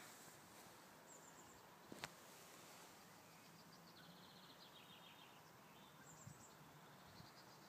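Near silence: faint outdoor ambience with a few distant bird chirps, including a quick run of notes about halfway through, and a single sharp click about two seconds in.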